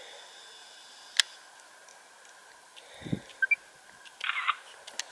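Quiet open-air ambience broken by a sharp click about a second in and a few softer knocks and clicks later, from handling the camera, with a couple of brief high chirps near the middle.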